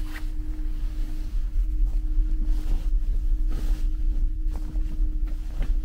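Steady low drone of a large car ferry under way, with a constant hum, heard from inside a berth cabin; soft rustles of bedding being handled come and go over it.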